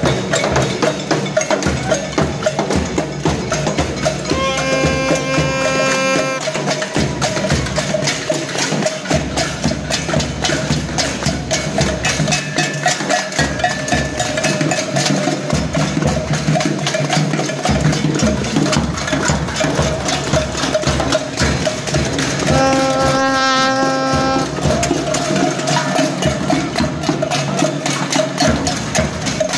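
A crowd beating hand percussion (hand drums, tambourines, sticks and other noisemakers) in a dense, continuous clatter of strikes. A held pitched note sounds twice, each time for about two seconds.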